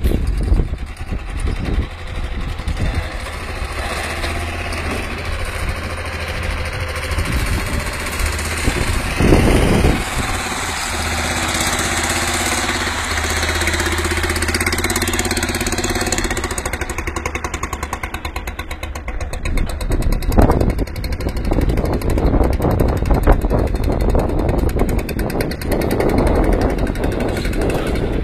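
Small Citroën tractor engine running steadily under load as it pulls two grain hopper trailers, with a few louder knocks along the way.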